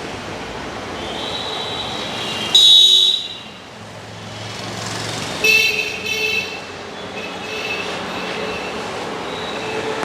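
Street traffic running steadily with vehicle horns honking: one loud horn blast about two and a half seconds in, then two shorter honks a few seconds later, with fainter horns in between.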